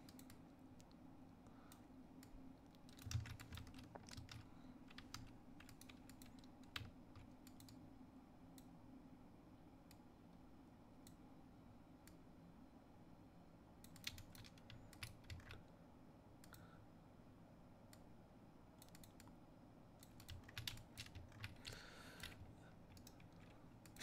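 Faint clicks of a computer keyboard and mouse, in short scattered clusters separated by long quiet gaps, over a faint steady hum.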